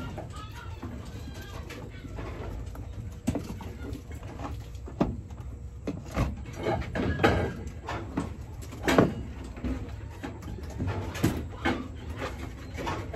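Puppies eating soft food from plastic tubs, with scattered lapping, clicks and knocks against the tubs and the plastic cage floor, over a steady low hum.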